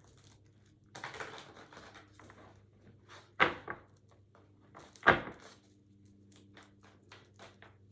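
Tarot cards being handled on a table: a rustle of shuffling cards, then two sharp taps as cards are set down, with small clicks of the deck in between.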